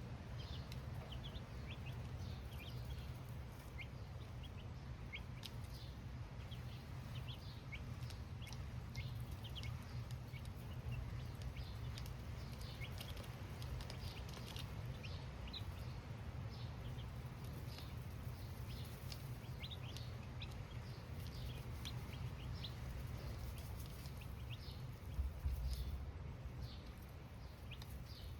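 A brood of baby chicks cheeping, many short high peeps falling in pitch, coming thick and fast throughout. A steady low rumble sits underneath, and there is a single low thump near the end.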